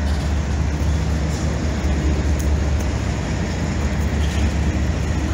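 Steady, loud, low rumbling background noise, with no distinct events.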